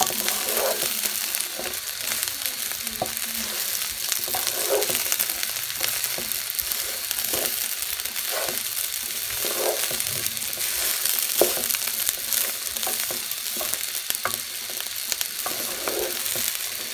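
Washed polao rice sizzling as it fries in oil in a frying pan, turned with a wooden spatula: a steady hiss with a scrape of the spatula about once a second. The rice is being fried until the grains turn dry and separate, before water is added.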